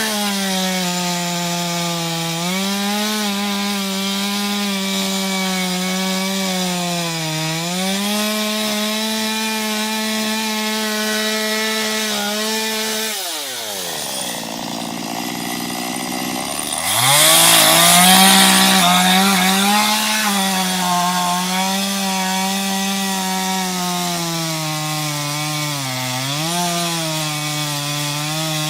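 Small chainsaw with a 15-inch bar running at full throttle, cutting into an ash trunk, its engine note wavering as the chain bogs and frees in the wood. About 13 s in the engine drops right down toward idle for about three seconds, then revs back up with a loud rush of cutting noise.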